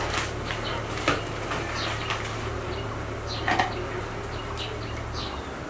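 Small clicks and taps of a pen being handled, with two sharper clicks about a second in and about three and a half seconds in. Under them runs a steady low hum that drops away near the end, and a few short, faint bird chirps come through.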